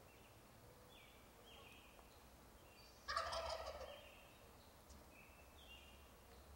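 Wild turkey gobbling once, about three seconds in: a single rapid, rattling call lasting about a second.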